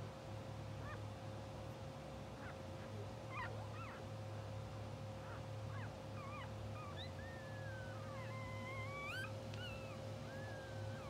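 Newborn English bulldog puppies squeaking and whining. Short squeaks that rise and fall come through the first half, then longer wavering whines from a little past halfway to the end. A steady low hum runs underneath.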